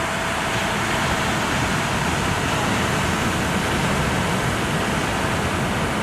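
Steady rushing noise of ocean surf, with a vehicle engine idling under it as a faint steady hum.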